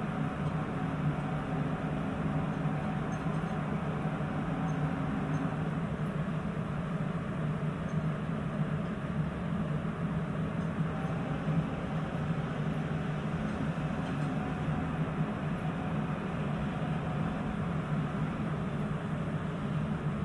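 Steady running noise inside a Sapporo subway Tozai Line 8000-series car on its rubber tyres: a continuous low rumble and hum.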